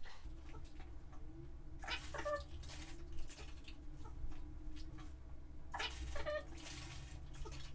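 A man's voice played back at four times speed, heard as two short high-pitched bursts about four seconds apart, over a steady low hum.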